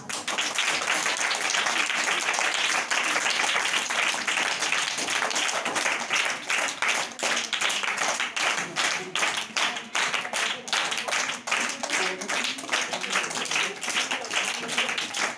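A group of children clapping continuously, many hands patting at once in a dense, uneven patter, with faint voices underneath.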